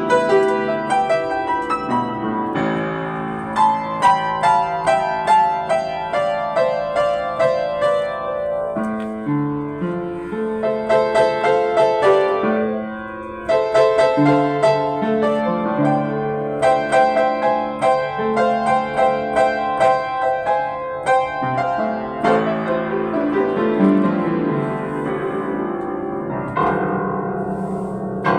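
Yamaha JU109 upright piano played solo: a busy run of chords and repeated notes. Just before halfway it drops briefly quieter, then comes back in suddenly with loud chords.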